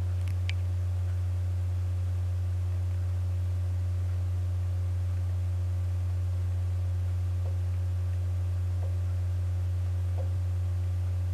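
Steady low electrical hum: one low tone held at an even level without change.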